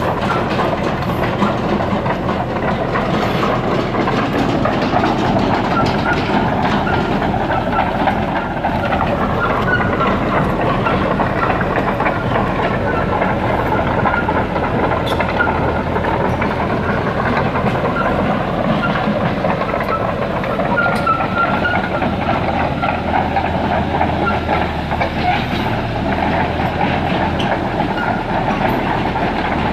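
Caterpillar 312D crawler excavator travelling on steel tracks over concrete: its diesel engine runs steadily under the constant clatter of the track links, with short high squeaks now and then.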